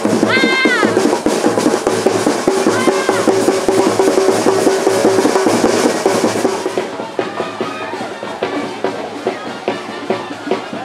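Parade band music with heavy drumming, a long held note in the middle; it turns quieter and duller about seven seconds in.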